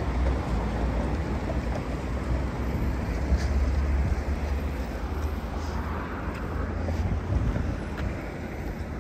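Wind rumbling on the microphone over the steady noise of road traffic.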